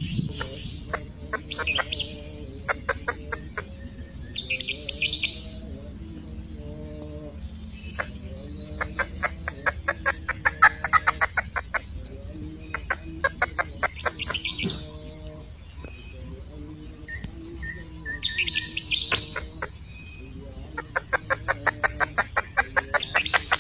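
Wild birds chirping, with a fast rattling trill of rapid notes that comes again several times, each run lasting a few seconds.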